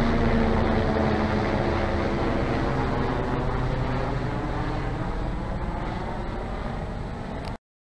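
Helicopter flying overhead, its engine and rotor sound fading steadily as it moves away; the sound cuts off abruptly near the end.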